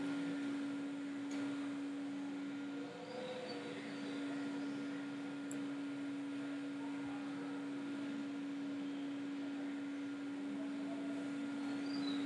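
Steady hum: one constant tone with a faint hiss underneath.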